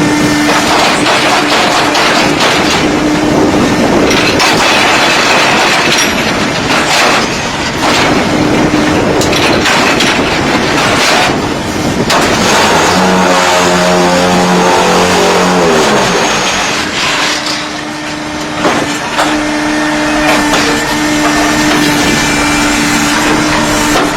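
Concrete block-making machine running: dense, loud mechanical noise with a steady hum and repeated knocks, and a motor note that sounds for a few seconds about halfway through and then fades.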